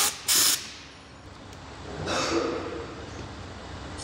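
Two short bursts of hissing as air is blown through a windshield washer nozzle to clear a suspected blockage, the second about a third of a second in. A fainter rushing sound follows about two seconds in.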